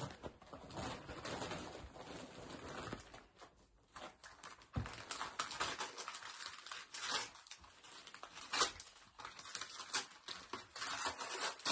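Wrapping paper being torn and crumpled by hand as a small gift is unwrapped: irregular crackling and rustling that comes and goes in short runs.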